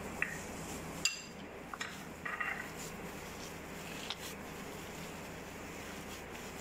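A gloved hand mixing a soft kebab mixture in a plastic bowl: a few light knocks and clinks, one about a second in with a brief ring, over a steady background hiss.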